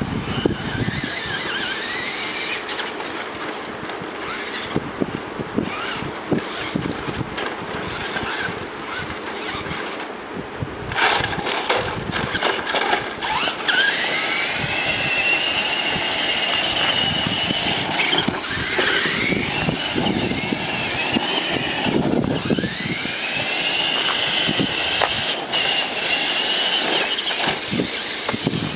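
Remote control truck driving, its motor and gears whining, with clattering wheel noise. Several times the whine rises in pitch as the truck speeds up, then holds high. These come more often in the second half, where it gets louder.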